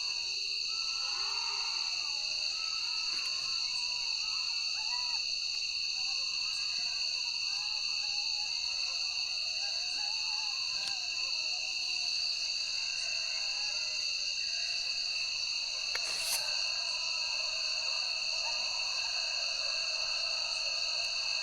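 Night forest ambience: a steady, high-pitched chorus of crickets, with many faint, short wavering calls lower down and a single click about 16 seconds in.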